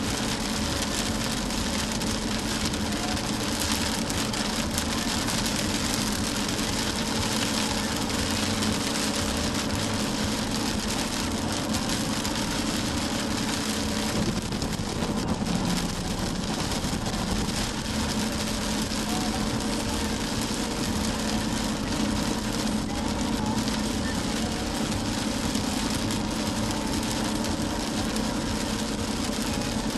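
Steady road and rain noise from inside a car driving on a wet road in heavy rain, with a constant low engine hum underneath.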